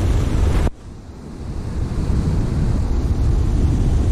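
Wind buffeting the microphone over surf breaking on a rocky beach. The noise drops off suddenly under a second in, then builds back up over the next second or so.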